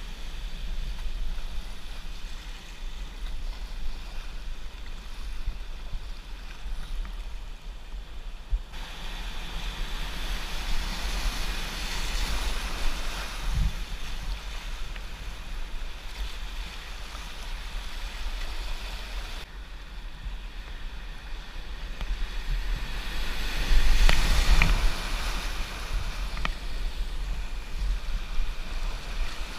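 Whitewater rushing through a river rapid, steady and loud, with a low rumble of wind on the microphone. The water gets louder for a second or two about 24 seconds in.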